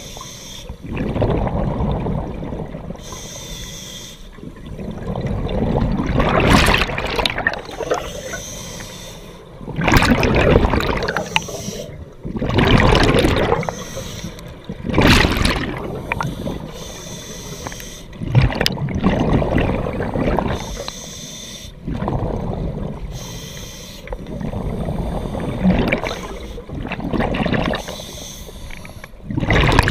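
Scuba diver's regulator breathing heard underwater: a hiss on each inhale and a loud gush of exhaled bubbles, repeating every few seconds.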